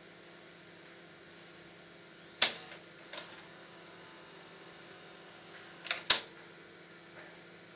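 Two sharp clicks about three and a half seconds apart, each followed by a few smaller ticks, from a gloved hand handling the opened VCR tape-deck mechanism, over a faint steady hum.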